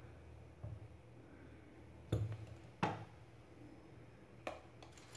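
A few short knocks and clicks of a metal spoon and a sauce bottle against a plastic chopper bowl while sweet soy sauce is spooned in, the two loudest about two and three seconds in, over a low steady hum.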